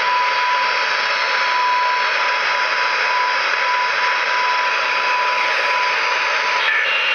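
FlexRadio 6600M transceiver's receive audio on the 40-meter band through its speakers: a steady hiss of band noise with a single steady whistle-like tone riding on it, which stops near the end.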